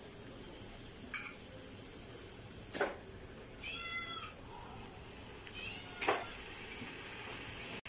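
Raw chicken pieces going into a pot of frying onion-tomato masala: a faint steady sizzle with a few sharp knocks of a metal slotted spoon against the aluminium pot. About four seconds in, a cat meows once, briefly.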